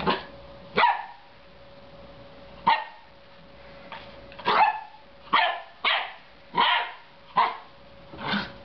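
Belgian Shepherd Groenendael puppy giving about nine short, sharp play barks at a dangling toy, spaced irregularly and coming faster in the second half.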